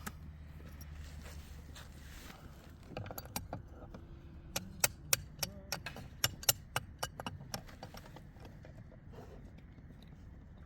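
Metal wrench clicking and clinking on the bolts of a 3-inch Romac repair coupling as they are snugged down to about 30 ft-lb by hand. A quick, uneven run of sharp clicks comes about three seconds in and stops by about seven and a half seconds.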